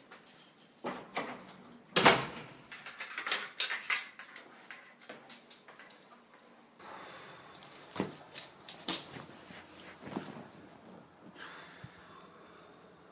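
A man moving about a small flat: irregular knocks and clicks of a door and footsteps. The loudest knock, about two seconds in, fits the front door shutting.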